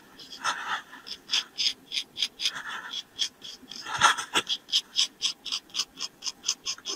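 Straight razor scraping stubble and shaving foam off a man's face in quick short strokes, about three or four a second, with a few louder sounds in between, the loudest about four seconds in.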